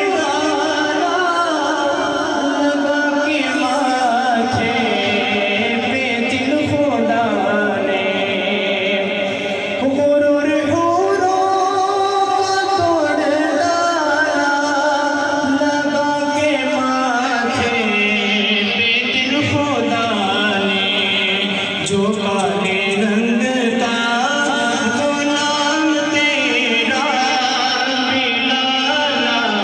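A male voice singing a naat, an Urdu devotional poem in praise of the Prophet, in long held melodic lines that slide up and down in pitch.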